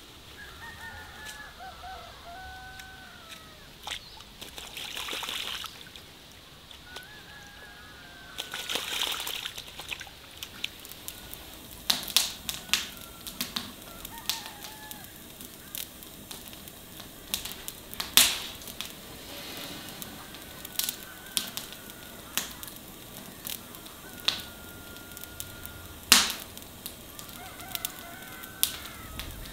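Birds calling with thin chirps that glide up and down, with two brief hissing rushes in the first ten seconds. From about eleven seconds in, a wood fire crackles with sharp pops, the loudest about eighteen and twenty-six seconds in, while the bird calls go on.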